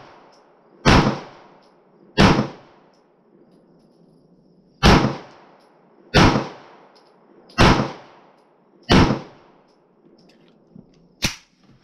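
A double-action semi-automatic pistol firing six shots, each with a short ringing echo: two about a second apart, a pause of roughly two and a half seconds, then four more at a steady pace. A lighter click follows near the end.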